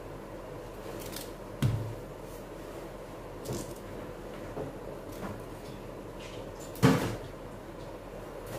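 Cauliflower florets being broken apart by hand and dropped onto a steel plate: a few soft knocks, with one sharper knock about seven seconds in.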